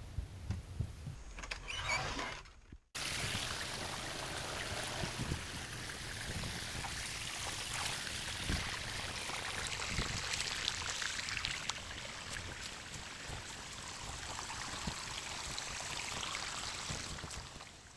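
A few light knocks, then about three seconds in a steady rushing hiss of running water starts and carries on unbroken.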